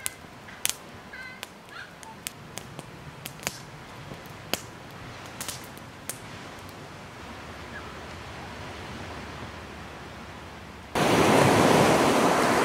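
Wood campfire crackling, with sharp irregular pops over a low hiss. About eleven seconds in it cuts abruptly to louder, steady surf and wind on the microphone.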